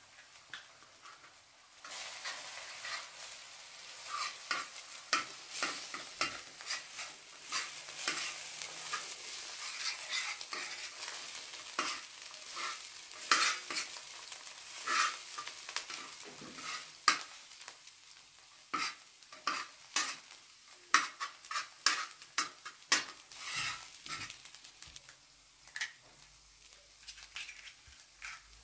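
Eggs and chopped greens frying in a wide metal pan, sizzling, while a metal spoon scrapes and taps against the pan as they are stirred. The sizzle sets in about two seconds in and dies down past the halfway point, leaving mostly the spoon's scrapes and taps.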